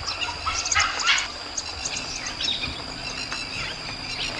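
Dholes making a string of short, high-pitched squeaks and whistles, thickest in the first second or so and sparser after. These are the strange calls of a territorial clash in which an alpha female drives off intruding females. A steady high insect drone runs underneath.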